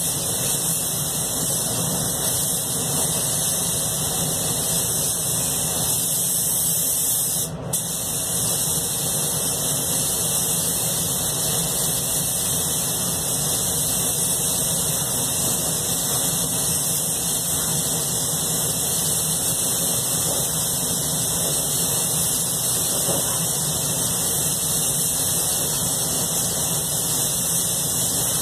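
Anest Iwata Classic Plus spray gun hissing steadily as compressed air atomises paint, over a steady low hum; the spray cuts out for a moment about a quarter of the way in.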